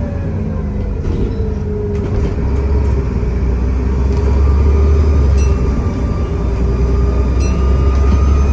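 Alexander Dennis Enviro400 double-decker bus engine pulling, its turbocharger whistling over a deep engine drone. The whistle falls in pitch and then holds steady, a second, higher whistle joins and rises slowly from about halfway, and the drone grows louder about two seconds in.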